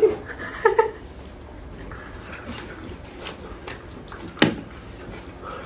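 Wet chewing and mouth sounds of people eating roast chicken, with short vocal sounds at the start and a sharp click about four and a half seconds in.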